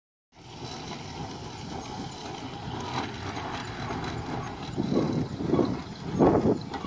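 Steam traction engine running, with a steady mechanical background. From about five seconds in come a few louder exhaust puffs, roughly two-thirds of a second apart.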